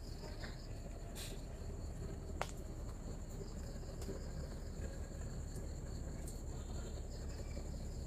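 Night insects, crickets among them, trilling without a break: one steady high-pitched trill with a second, pulsing chirp a little lower. A single sharp click comes about two and a half seconds in.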